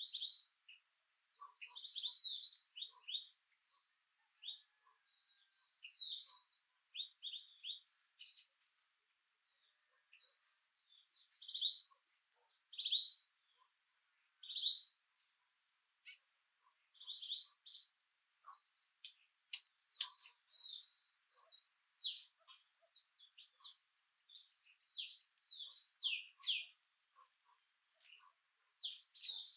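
Small birds chirping in short, high calls that come in quick clusters with gaps of a second or two between them, and a few sharp ticking notes partway through.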